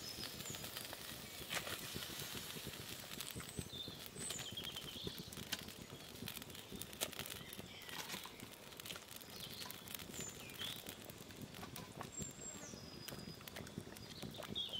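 Pot of gania fish curry simmering, with faint, irregular pops and crackles throughout. Birds chirp briefly now and then.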